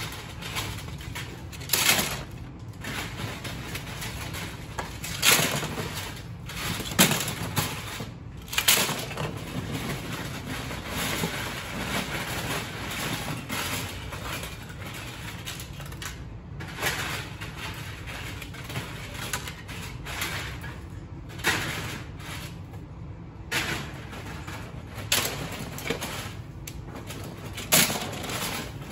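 Hands rummaging through a bin of loose plastic LEGO pieces: the parts clatter and rattle against each other and the plastic bag liner rustles, with a sharper clatter every few seconds.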